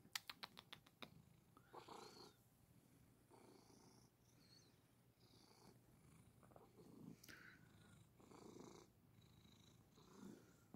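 Domestic cat purring softly, swelling and easing about every one and a half seconds. A quick run of about eight sharp clicks comes in the first second.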